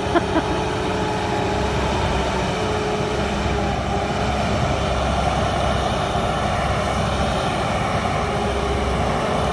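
Sherp 10x10 all-terrain vehicle's engine running steadily: a low rumble with a steady whine over it. A couple of short clicks come right at the start.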